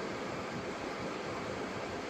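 Steady rushing hiss, with no distinct crackles, from a hard-stoked cast-iron wood stove with a pot of water at a rolling boil on it.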